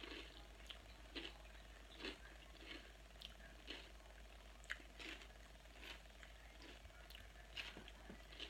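Close-up chewing of a crunchy salad with croutons: irregular crisp crunches, about two a second, over a faint steady hum.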